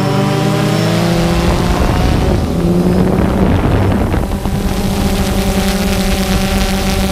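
DJI Phantom 2 quadcopter's motors and propellers humming as it flies, a chord of several steady tones that shift in pitch about a second or two in. Low wind rumble on the microphone comes in about a second in and continues.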